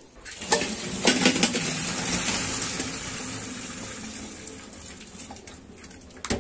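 Boiled pine cones and their cooking water poured from a pot through a strainer: a sudden rush of pouring water with a few knocks near the start, slowly tailing off.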